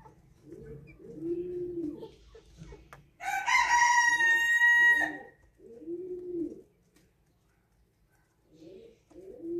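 A rooster crows once, loud and drawn out for about two seconds, a few seconds in. Around it, pigeons coo over and over in short, low, rounded notes, pausing briefly near the end.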